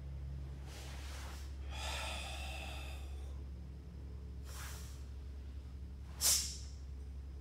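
Audible controlled breathing of a karate practitioner performing a kata, over a steady low hum. There are soft breaths, a longer drawn-out exhale about two seconds in, and a short, sharp forced exhale a little after six seconds. That last one is the loudest sound, timed with a punch.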